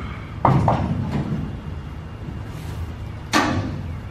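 Hollow clunks and knocks on an aluminum boat hull and its angle-iron framing as a Sea-Doo 787 two-cylinder engine is carried over it and lowered in. There are two quick knocks about half a second in, a lighter one near one second, and a louder clunk a little after three seconds as the engine is set down.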